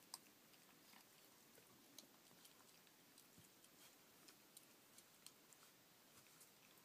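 Very faint, scattered clicks and ticks from 30-day-old rough collie puppies eating and chewing, with a slightly louder click near the start and another about two seconds in.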